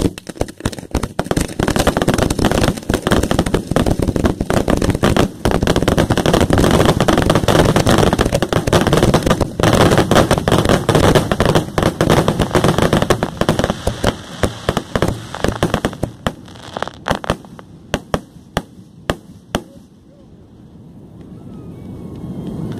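Fireworks going off at close range: a dense, rapid volley of launches and bursts for about sixteen seconds, thinning to a handful of separate bangs and dying out about twenty seconds in.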